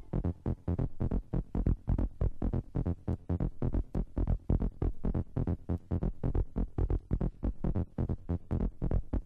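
Instrumental electronic dance music with a steady, fast four-on-the-floor kick drum and hi-hats, no vocals.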